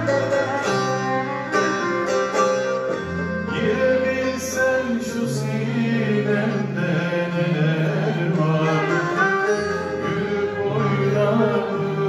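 Turkish folk song performed live by a choir accompanied by bağlama (long-necked saz) and acoustic guitars, with sustained low notes under the melody.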